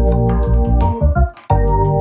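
Background music: a keyboard tune over a steady beat, with a brief break a little past the middle.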